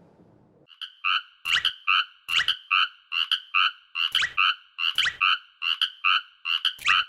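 Cartoon railroad-crossing warning alarm starting about a second in: a two-tone ding repeating about twice a second, with sharp knocks mixed in.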